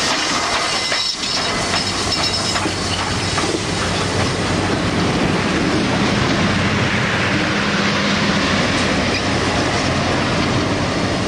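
Train passing close by: Southern 2-8-2 steam locomotive No. 4501's running gear, then its tender and the coupled diesel locomotives roll past loudly on the rails. A steady low hum comes in about four seconds in as the diesel units go by.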